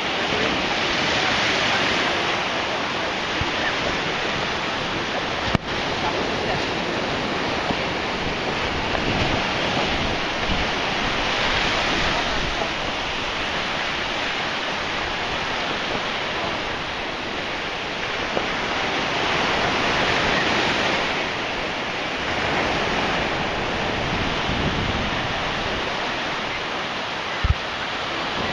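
A steady rushing noise that swells and eases every several seconds, with two brief sharp clicks, one about a fifth of the way in and one near the end.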